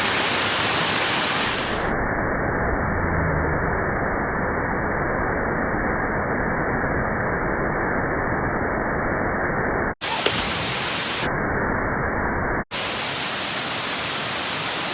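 Steady rushing of a waterfall, an even noise with no pitch, cut off abruptly for an instant about ten seconds in and again about twelve and a half seconds in.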